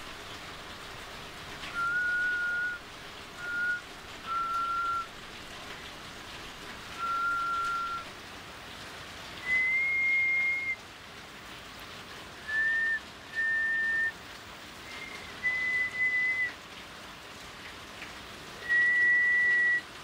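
A slow tune whistled in single held notes with pauses between them, the pitch climbing higher over the phrase, over a steady background hiss.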